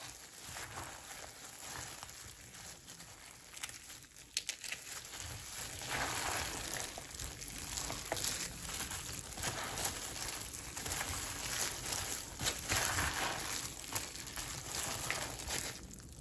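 A hand in a plastic glove tossing a noodle chatpate salad in a plastic bowl: the glove crinkles and the noodles and chopped vegetables rustle and patter, getting busier about six seconds in.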